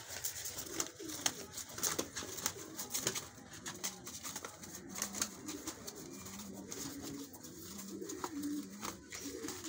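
Lotan roller pigeon tumbling on a concrete floor, its wings fluttering and slapping the ground in quick, irregular bursts, while pigeons coo in low, repeated phrases.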